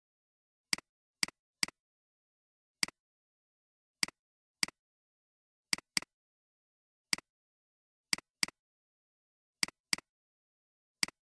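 Computer mouse button clicks, fourteen of them at an uneven pace, each a quick double tick of press and release, with silence in between.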